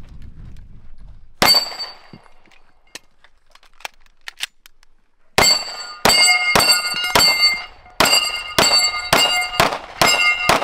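Pistol shots fired at a steel plate target tree, each shot followed by the ring of a struck steel plate: one shot about a second and a half in, then a string of about ten shots roughly half a second apart from halfway through.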